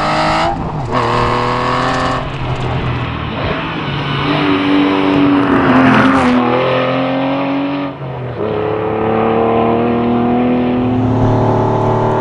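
Aston Martin V12 Vantage's V12 engine pulling hard under acceleration, its note climbing in pitch and dropping suddenly at each upshift, about three times.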